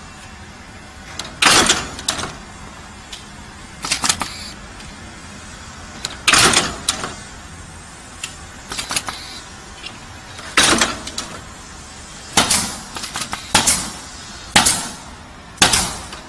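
Automatic rivet-feeding riveting machine setting rivets into metal ironing-board parts: a sharp metallic bang with a brief ring at each stroke, about eight strokes at uneven intervals of one to four seconds, with lighter clicks of rivets and parts in between over a steady machine hum.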